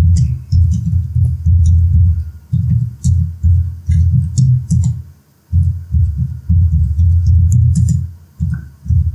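Typing on a computer keyboard: keystrokes coming through as heavy low thuds with faint light clicks, in bursts with a short pause about five seconds in.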